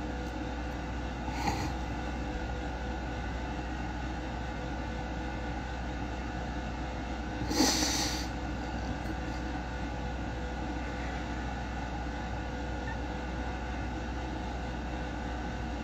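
A woman crying quietly without words: a faint sniff about a second and a half in and a louder sharp sniffing breath about halfway through, over a steady room hum.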